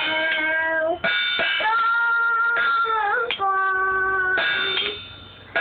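A young girl singing a song in long held notes, with short breaks between phrases.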